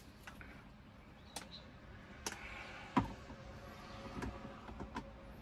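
A few short clicks and knocks from a camera being fitted and locked onto a monopod's mount, the loudest knock about three seconds in, with faint handling rustle between them.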